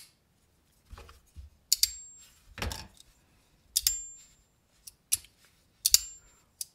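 Titanium-handled Factor folding knife worked open and shut by hand: about six sharp clicks as the blade snaps into place, several followed by a brief high metallic ring.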